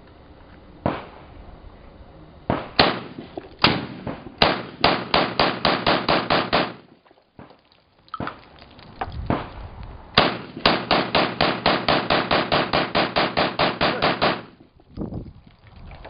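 SKS semi-automatic rifle firing: a few single shots, then a quick string of about four shots a second, a short pause and two more shots, then a long rapid string of about five shots a second lasting some four seconds.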